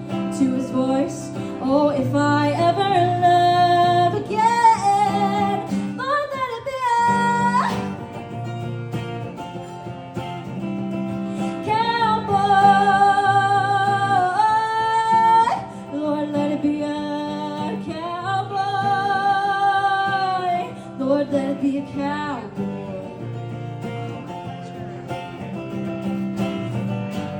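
A woman singing a country song to her own acoustic guitar accompaniment, with long held sung notes over strummed chords.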